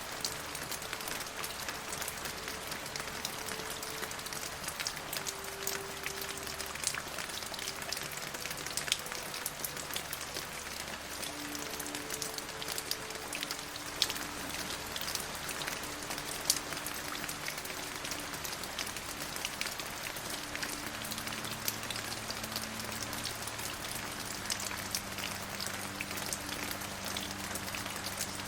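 Steady rain falling, with many individual drops pattering as small distinct clicks over an even hiss.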